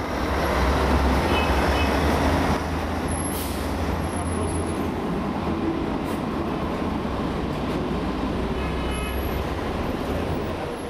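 City street traffic with heavy vehicles running: a steady low rumble, with a short hiss about three and a half seconds in.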